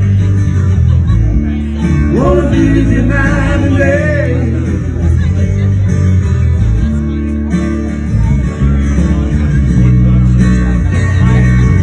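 Live band playing, with guitar and a strong, steady bass line; a wavering lead melody comes in about two seconds in and fades out a couple of seconds later.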